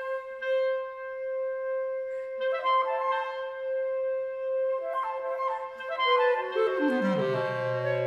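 Woodwind quartet of two flutes, clarinet and bass clarinet playing contemporary chamber music: one long held note with short figures from the other instruments entering around it. Near the end a run falls into a low sustained chord, with the bass clarinet holding the lowest note.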